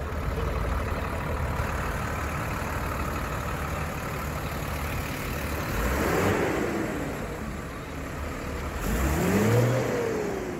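Diesel tractor engines idling in a line of parked tractors. A JCB Fastrac's engine close by grows louder twice, about six and nine seconds in, with its pitch rising and falling each time.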